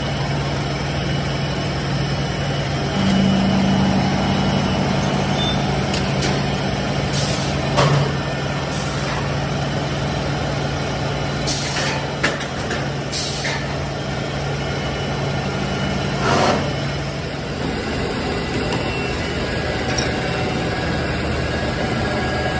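PVC pipe extrusion machinery running with a steady low hum. Several short hisses come through the middle, along with a few metal knocks.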